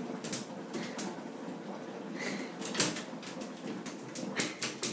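A dog's claws scratching and tapping on the rim of a bathtub as it stands with its front paws up on the edge: scattered short clicks, with a quick cluster of taps near the end.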